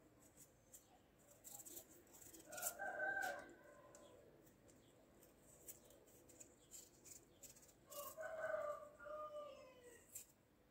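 Faint rooster crowing, twice: a short call about a third of the way in and a longer one near the end that falls away at its close.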